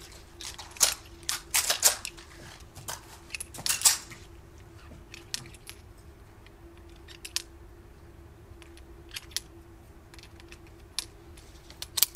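Metallic clicks and clatter of a revolver being handled and made ready, busy for the first four seconds, then scattered single clicks.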